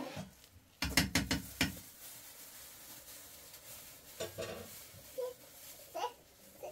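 A quick run of sharp knocks or clinks about a second in, followed by a few fainter handling noises.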